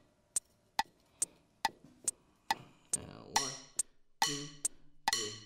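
Electronic metronome click set to 70 beats per minute, ticking evenly about twice a second, counting in before a drum fill.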